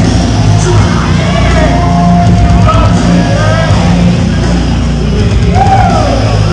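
Loud hard rock music, heavy-metal in style, playing continuously.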